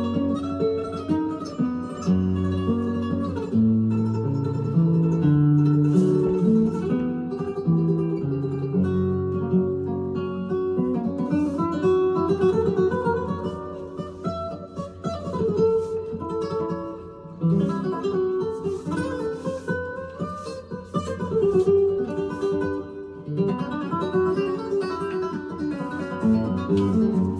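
Flamenco acoustic guitar music in the manner of a soleá: plucked melodic lines with stretches of quick strumming.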